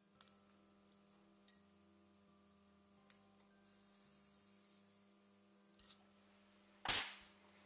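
Faint handling sounds on a workbench: a few light clicks and taps as a marker and a steel part are handled, then one louder short clatter about seven seconds in, over a low steady hum.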